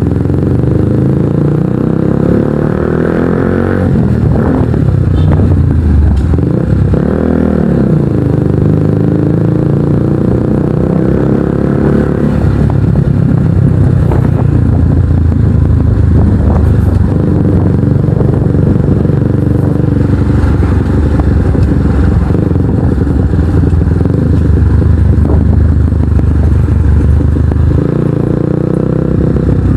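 Kawasaki NS150 single-cylinder engine through an Akrapovic exhaust while riding, largely buried under heavy wind noise on the microphone. The engine pitch drops and rises again about seven seconds in.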